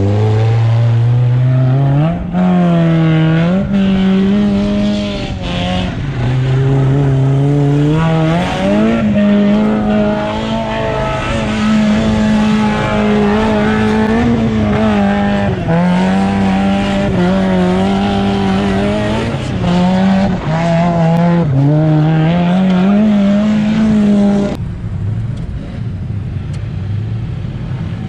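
Mazda Miata kart's four-cylinder engine revving hard under load while off-roading. Its pitch climbs and drops again and again as the throttle is worked. About 24 seconds in it falls back to a lower, quieter run.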